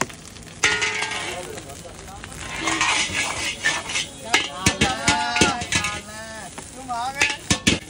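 Steel ladle stirring and scraping egg fried rice in a large wok over high heat: a hissing sizzle broken by sharp clanks of the ladle against the pan, several in quick succession near the end.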